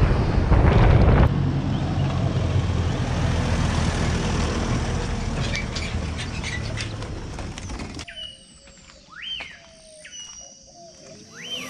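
Boat's outboard motor running with wind buffeting the microphone, slowly fading. About eight seconds in the noise stops abruptly, leaving a bird calling several times with quick rising-and-falling chirps.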